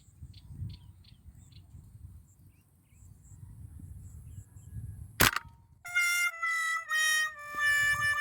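A single sharp airgun shot about five seconds in, followed by a brass-like sound effect of four descending notes, the last one held and wavering. Before the shot, faint insect chirps repeat at about three a second.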